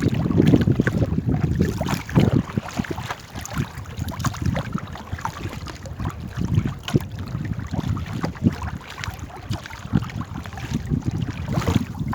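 Water splashing and lapping around a small paddled boat, with gusty wind rumbling on the microphone.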